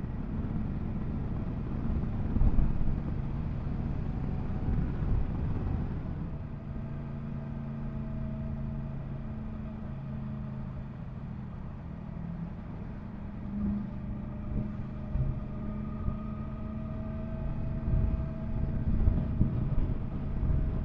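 Yamaha MT-10 SP motorcycle's inline-four engine running under way, with wind rumble on a helmet-mounted microphone. From about six seconds in, the engine holds a steady note at a constant speed.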